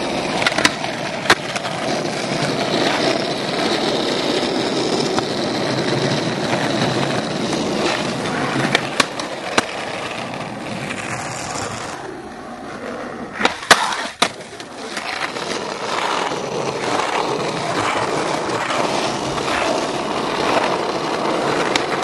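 Skateboard wheels rolling over rough asphalt, with a few sharp wooden clacks of the board popping and landing. The loudest cracks come just past halfway, after a quieter moment.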